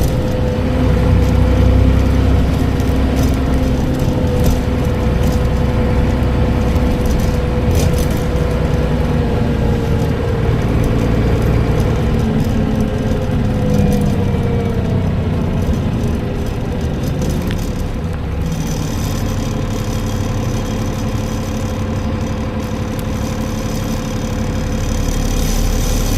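Transbus Trident double-decker bus with a Voith gearbox running, with a steady whine over the engine that wavers and fades out about 17 seconds in. The bus then runs more quietly with light rattles, the sound swelling again near the end.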